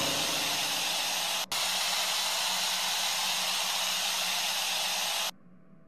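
A steady hiss like white noise or escaping steam, dropping out for an instant about a second and a half in and cutting off abruptly near the end, leaving a faint hum.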